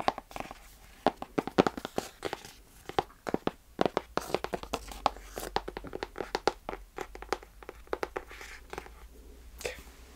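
Close-up handling of crinkly wrapping or packaging, with tearing: many short, irregular crackles.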